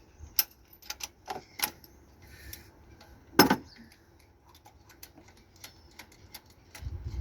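Irregular light metallic clicks and taps from tools and parts being handled, with one loud knock about three and a half seconds in.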